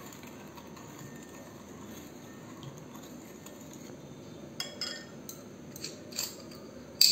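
Metal spoon clinking against a glass bowl while stirring milk: a few light clinks from about four and a half seconds in, the loudest near the end.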